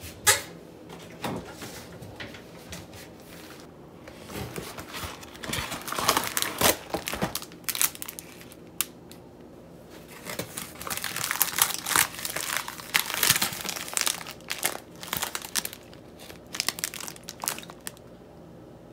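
Paper microwave popcorn bag crinkling and rustling in irregular spells as it is handled and unfolded, with a sharp knock right at the start.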